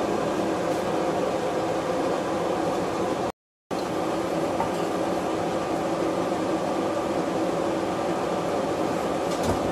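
Steady even hiss with a faint hum under it, the background of a kitchen stovetop while oil heats in a pan; it cuts out for a split second a little over three seconds in.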